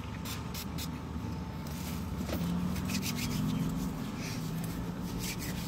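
Fast-food paper wrappers and bags crinkling, with eating noises, as people eat in a vehicle's cabin: many short crackles over a steady low hum.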